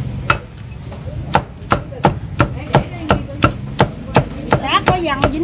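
Cleaver chopping crispy roast pork belly on a round wooden chopping block: one chop, then from just over a second in a steady run of chops, about three a second.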